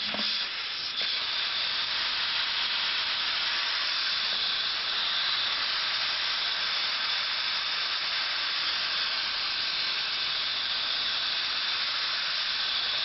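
Carbon monoxide gas from a Gopher Exterminator hissing steadily as it is fed in for a second dose.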